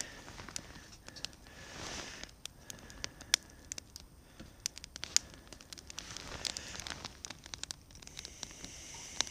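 Small wood fire of pine kindling and thin sticks crackling as it catches, with many sharp, irregular pops. Two brief soft rustles, about two seconds in and again near seven seconds.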